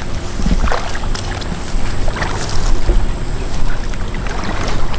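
Shallow floodwater sloshing and splashing in a few separate bursts, over a steady rumble of wind on the microphone.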